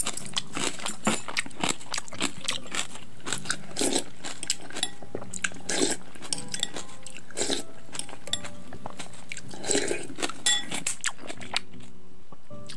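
Close-up eating sounds: chewing and crunching kimchi with rice soaked in cold barley water, in irregular crunches and wet mouth clicks a few times a second.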